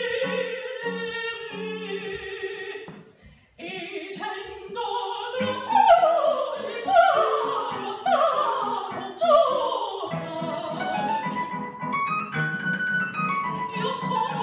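A woman singing an opera aria with piano accompaniment. The voice breaks off briefly about three seconds in, then runs through a string of quick falling runs, and moves into rising phrases over repeated low piano notes near the end.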